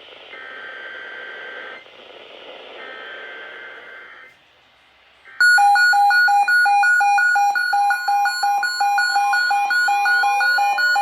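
Emergency Alert System end-of-message data bursts: two short, raspy digital chirps of about a second and a half each. After a brief gap comes a much louder electronic tone sequence that pulses about four times a second, with rising sweeping tones joining near the end.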